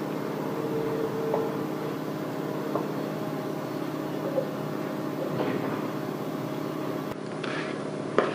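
A steady mechanical hum made of several even tones, with a few faint soft scrapes of a spoon on a pan as chocolate cream is spooned out, and a short click near the end.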